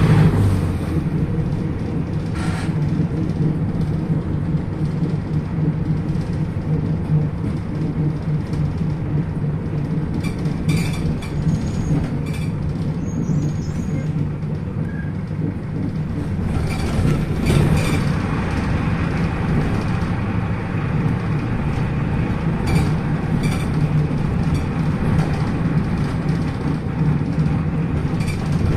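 PAZ-320402-05 city bus heard from inside while under way: its diesel engine runs steadily with a low hum. Sharp rattles and knocks from the body come a few times.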